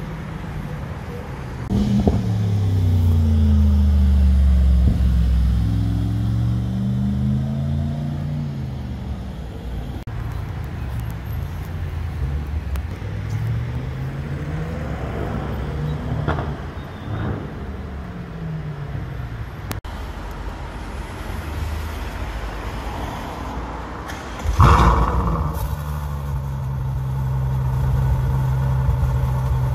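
Sports cars accelerating hard on a street, their engines revving with rising and falling pitch: a loud one for several seconds, later a quieter one. Near the end a Ferrari FF's V12 starts up with a sudden loud blip of revs, then settles into a steady idle.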